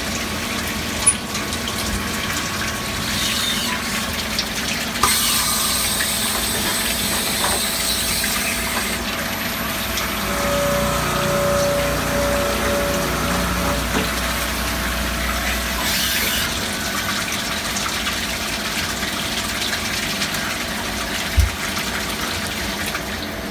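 Star SR-32J CNC sliding head lathe cutting under a heavy flood of cutting oil, the oil gushing and splashing steadily over the tooling. Higher hiss comes in for a few seconds twice, a faint pulsing whine sounds midway, and a single low thump comes near the end.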